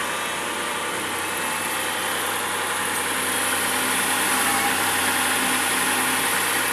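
Kia Opirus's freshly overhauled 3.0-litre G6CT V6 engine idling steadily.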